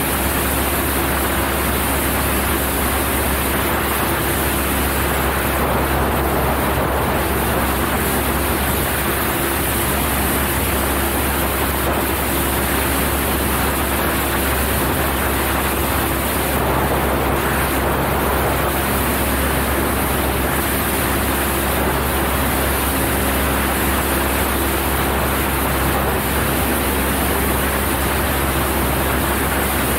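Cessna 172's piston engine and propeller running steadily in flight: a constant low drone under a loud, even rush of air.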